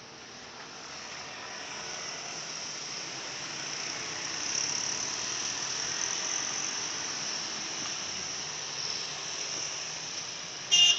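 Steady roadside traffic noise with a high hiss, swelling over the first few seconds and then holding. Near the end comes one brief, loud, high-pitched sound.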